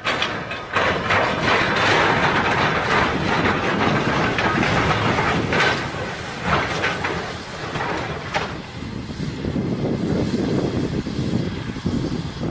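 Train passing close by at speed: a loud, steady rushing noise with scattered knocks, coming in suddenly at the start and getting deeper in the second half.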